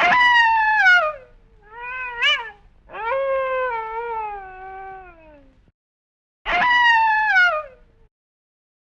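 Wolf howling in four separate calls, each one sliding down in pitch. The third call is the longest, at about two and a half seconds, and the last starts after a short pause.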